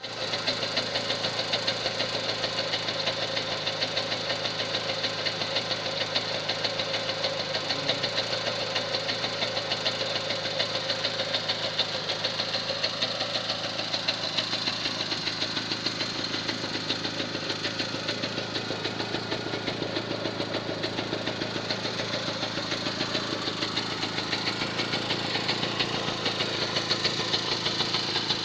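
MV Agusta Chicco scooter's single-cylinder two-stroke engine idling steadily after restoration, with an even, rapid pulse.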